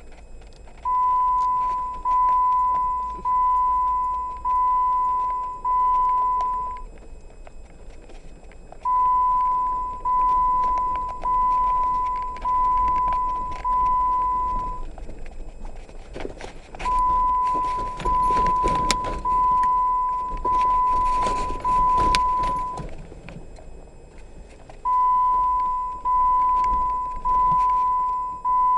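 Electronic beeper sounding long beeps at one steady pitch, five in a row, each fading a little, then a pause of about two seconds before the next group of five. A rustling noise runs under the third group.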